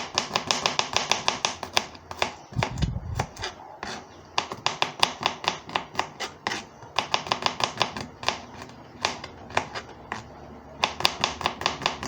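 A kitchen knife chopping garlic cloves on a chopping board in several quick runs of about six to seven strokes a second, with short pauses between runs, cutting the garlic roughly rather than finely.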